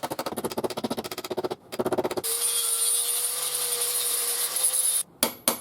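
Sheet metal being worked by hand with rapid, even strokes. After that a small power tool runs steadily for about three seconds and cuts off suddenly, followed by a few sharp clicks.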